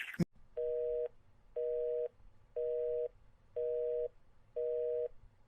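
Telephone busy signal after the call is hung up: a short click, then a two-note tone that beeps for half a second and pauses for half a second, about once a second, five times.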